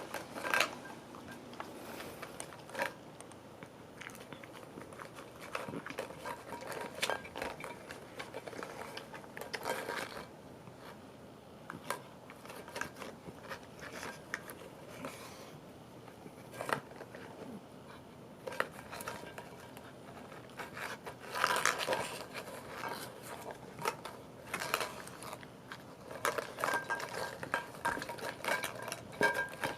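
A dog rummaging in a basket of plastic Easter eggs and treat-stuffed dog toys: scattered clicks, knocks and clattering of plastic, in short flurries with pauses between, busiest in the second half.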